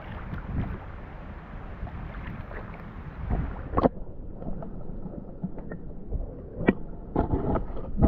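Wind rumbling on the microphone outdoors, with scattered knocks and clicks, the sharpest just before four seconds in and another near seven seconds in.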